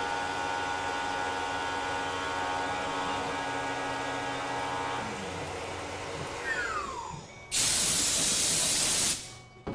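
Tormach PCNC 1100 CNC mill's spindle running steadily with a multi-tone whine, then winding down in a falling pitch about six seconds in. A loud blast of hissing air follows for about a second and a half, then cuts off.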